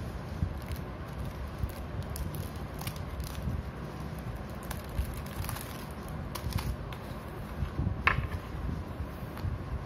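Plastic wrapping and cardboard packaging rustling and crinkling as tempered-glass screen protectors are handled, with scattered light clicks and a sharper crackle about eight seconds in, over a steady low rumble.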